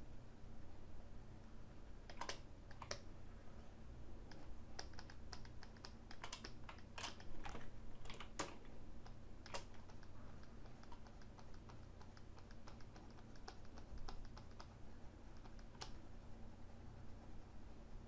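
Computer keyboard and mouse clicking in irregular, scattered taps, a few of them louder, with a run of lighter ticks about two-thirds through. A faint low steady hum lies underneath.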